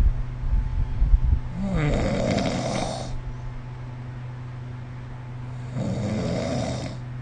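A sleeping person snoring: a low rattling snore in the first second or so, then two airy breaths, one about two seconds in and one near the end.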